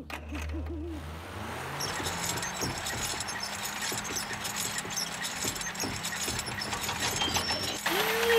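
An owl hooting in a short wavering call in the first second, as a night-time sound effect, over a low hum. A steady hiss with a faint low drone follows and runs until near the end.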